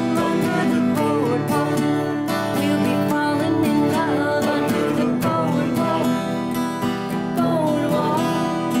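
Several acoustic guitars strummed together while a woman sings a song.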